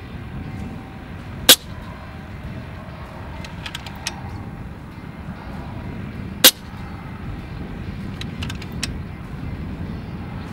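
Two sharp shots from an FX Impact M3 PCP air rifle, about a second and a half in and again five seconds later, with small clicks of the action being cycled to load the next slug between them. A steady low rumble sits underneath.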